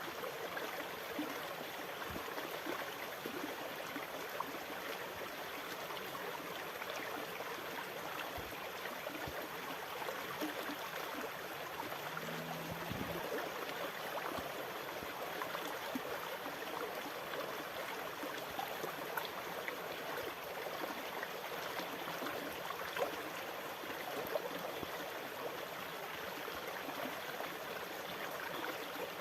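Sea water lapping and washing in a steady, even rush of water, with no big swells in loudness. A faint brief low hum sounds about halfway through.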